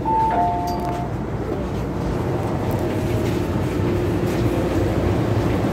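A two-tone chime (a high note, then a lower one) sounds once inside an MTR M-Train metro car as the doors stand open. The train's steady low rumble and hum follow.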